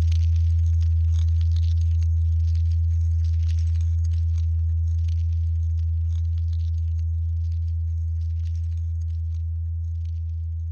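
Low, steady electronic drone tone, slowly fading, under a fine scratchy crackle that thins out toward the end.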